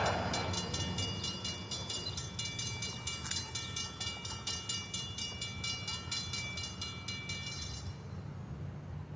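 Grade-crossing bell ringing in rapid, evenly spaced strokes over the steady low rumble of a passing freight train. The bell stops about eight seconds in.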